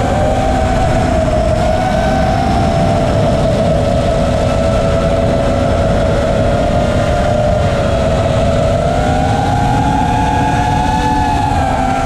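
FPV racing quadcopter's brushless motors whining steadily in flight, the pitch drifting gently and rising a little about nine seconds in, over a rush of wind noise.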